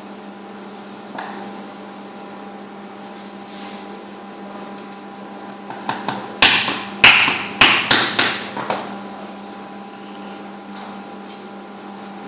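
A run of about six sharp knocks over a couple of seconds, about halfway through, over a steady electrical hum.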